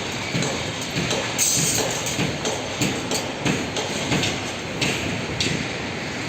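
Stadium din with a steady beat of sharp percussive strikes, about two a second, over a constant background wash of noise.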